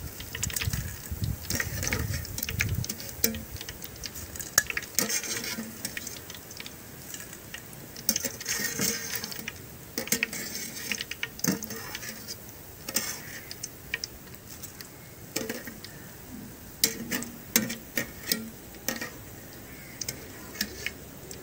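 Wire skimmer clinking and scraping against an aluminium frying pan in irregular knocks while fried boondi is scooped out of hot oil, with the oil sizzling underneath.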